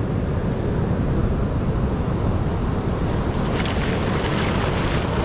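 Surf breaking and washing up the beach in a steady rush; from about three and a half seconds in, splashing as feet wade through the shallow wash.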